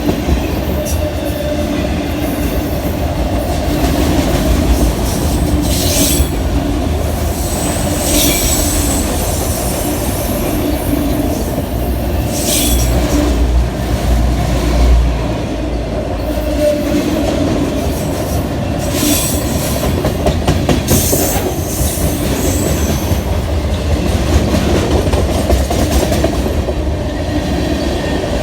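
Cars of a passing freight train rolling by: a steady rumble and clatter of wheels on rail, broken by several brief, high-pitched wheel squeals.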